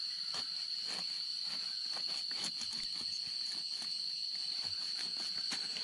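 Steady, unbroken high-pitched drone of an insect, a cricket or cicada, with faint scattered ticks and rustles underneath.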